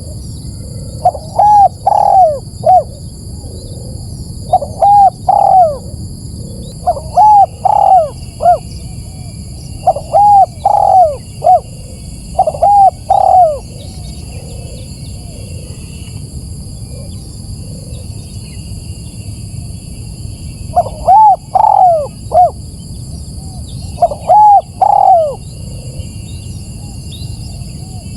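Spotted dove (tekukur) cooing: phrases of three or four arched coos, repeated every two to three seconds, with a pause of about seven seconds midway before two more phrases. A steady high-pitched hum runs underneath.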